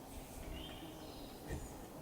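Faint outdoor background with a few short, high bird chirps.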